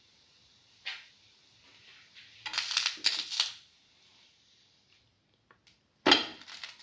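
A spatula scraping and knocking against a frying pan as an egg-dipped sandwich is worked loose and turned over. A scrape of about a second comes near the middle, and a sharp clack comes near the end as the sandwich is flipped.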